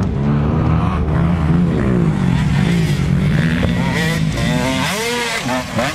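Motocross bike engines running hard, their pitch rising and falling with the throttle. A quick run of throttle blips comes about five seconds in.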